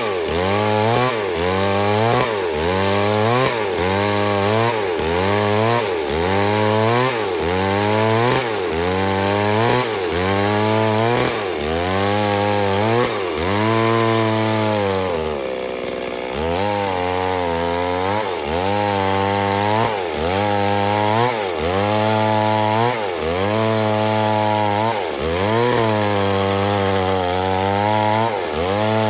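Two-stroke chainsaw cutting wood under load, its engine pitch rising and dropping about once a second as the chain bites and frees. About halfway through the revs fall away briefly, then the cutting rhythm picks up again.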